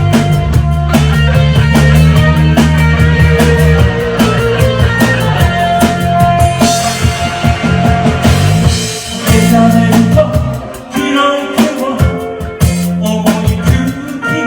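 Rock band playing, with drum kit, bass and guitar; a cymbal wash swells in the middle and the band briefly drops back about two-thirds of the way through.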